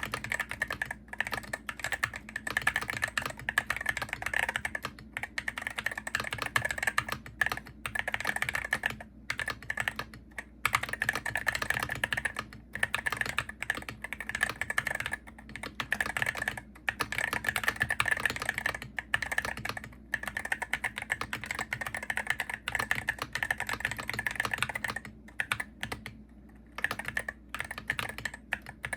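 Steady typing on a Hero68HE gaming keyboard: a fast, uneven stream of key clacks, broken by a few brief pauses and a slightly longer one near the end.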